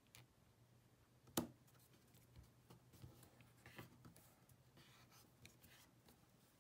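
Faint handling sounds of fingers pressing and shifting a new battery and the opened iPod Touch on a work mat: light taps and rubbing, with one sharp click about a second and a half in.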